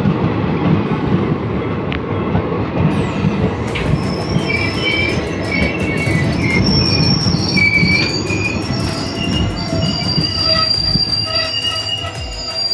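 Train running on the rails with a loud, steady rumble. From about four seconds in, the wheels squeal against the rails in several high, wavering tones that carry on to the end.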